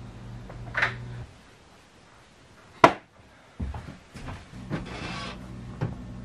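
Footsteps and knocks on a wooden plank floor, the loudest a single sharp knock a little under three seconds in, over a steady low hum.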